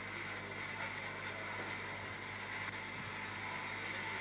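Steady background hiss and low electrical hum, with no distinct events.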